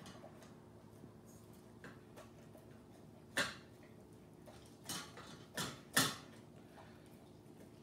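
Standard poodle eating chicken and rice from a stainless steel bowl: faint small ticks of eating, with four sharp clinks at the bowl between about three and a half and six seconds in, the last the loudest.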